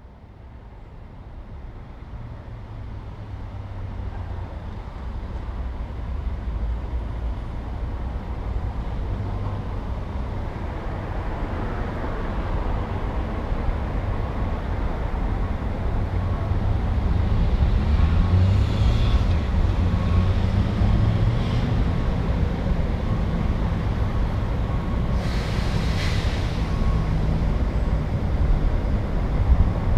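City street traffic fading in to a steady low rumble of passing cars and engines. A vehicle engine drones steadily in the second half, with two short hissing bursts around the middle and near the end.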